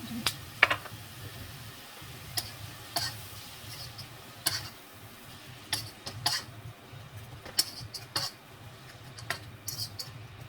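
A cooking utensil scraping and clinking against a pan as ground beef is stirred, in irregular strokes about once every second.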